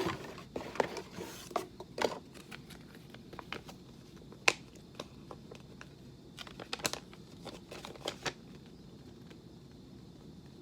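Paper rustling and crinkling as the pages of a small instruction booklet are handled and turned, with scattered sharp clicks and taps. There is a burst of rustling in the first two seconds, a single sharp tap about four and a half seconds in, and another cluster of crinkles around seven seconds.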